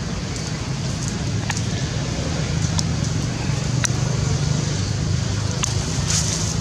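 Steady low outdoor rumble, like distant engine or traffic noise, with a few short sharp clicks scattered through it.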